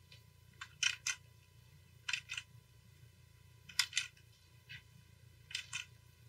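Sharp clicks of computer input while painting in Photoshop, mostly in pairs about a fifth of a second apart, four times, with a few fainter single clicks. A faint steady low hum lies under them.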